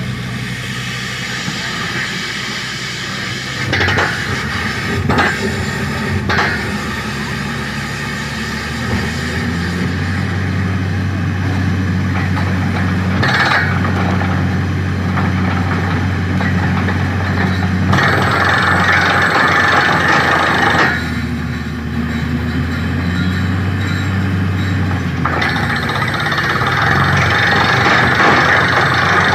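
Borewell drilling rig with its air compressor and diesel engine running steadily, with a few short knocks early on and two long stretches of loud rushing hiss in the second half.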